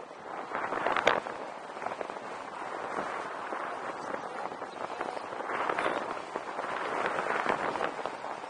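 Airflow of a paraglider in flight rushing and buffeting over the microphone, a crackly wind noise that swells and eases, with one sharp click about a second in.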